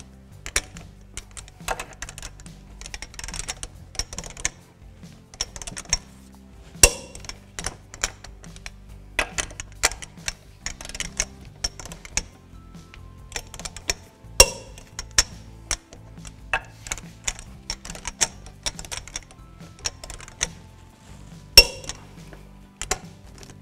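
Torque wrench with a 22mm socket ratcheting in quick clicks as lug nuts are tightened to 140 ft-lb in a star pattern, with a few louder sharp clicks. Background music runs underneath.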